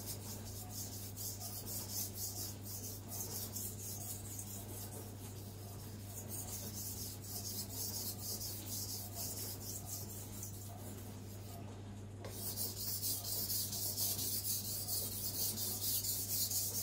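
Steel knife blade stroked back and forth on a Naniwa Aotoshi 2000-grit water stone, a quick run of gritty scraping strokes. The stone's slurry has been let dry a little on purpose, for a gritty grip while polishing the edge. The strokes pause briefly about 12 seconds in, then come back louder.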